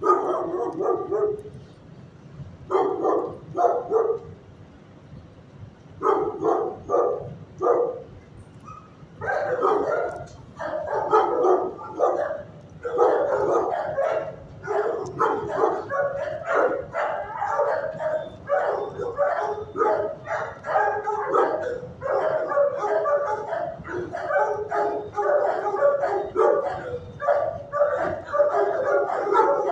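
Shelter dogs barking and yipping in short bursts, in scattered clusters at first, then almost without pause from about nine seconds in.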